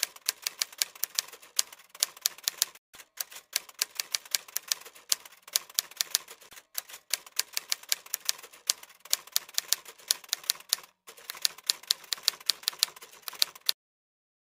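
Typewriter sound effect: a rapid run of key clicks, several a second, with a few brief pauses, stopping abruptly near the end.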